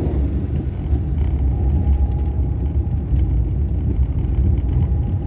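Car driving on an unpaved, rutted road, heard from inside the cabin: a steady low rumble of engine and tyres.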